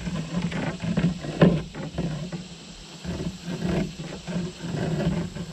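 Low rumble with irregular knocks and clicks throughout: handling noise from fishing in a kayak as the angler works the rod and reel.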